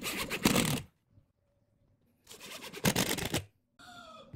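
Cordless power driver driving screws into pine boards: two short rattling bursts of the screw going in, with a clean break between them. Near the end a brief whining tone that bends in pitch.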